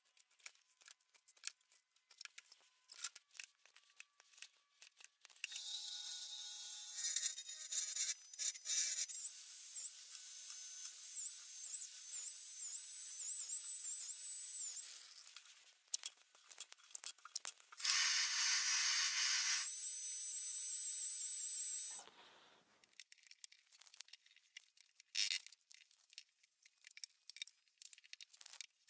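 Woodworking at a bench: scattered taps and clicks of hand work on wood, then a handheld power joiner cutting into a board, a steady loud hiss with a high thin whine for about ten seconds. A second loud burst of hissing follows after a short pause, then more scattered knocks.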